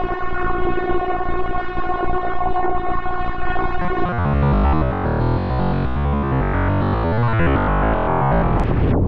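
Background synthesizer music: a held chord for about four seconds, then a busier, lower passage of changing notes.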